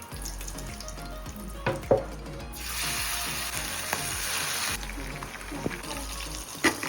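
Chicken pakora frying in hot oil: a steady sizzle that swells sharply for about two seconds in the middle, with sharp knocks of utensils, the loudest about two seconds in and near the end.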